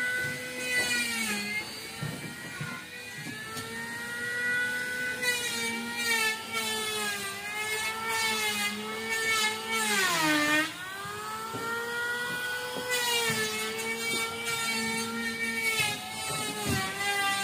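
Small engine running with a high whine, its speed wavering up and down and dropping sharply for a moment about ten seconds in before picking up again.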